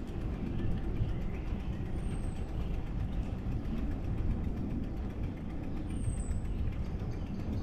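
Steady low rumble of wind and rolling noise while riding a bicycle, with two short, high, falling whistles about two and six seconds in.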